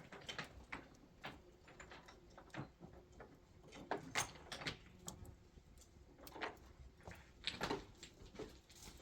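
Irregular light knocks, clicks and scrapes, a few each second, with louder clusters about four and seven and a half seconds in.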